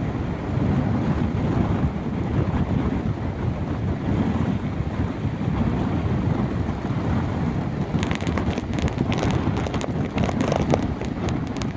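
Strong northeast wind buffeting the microphone: a steady, heavy low rumble. About eight seconds in, a crackling hiss joins it.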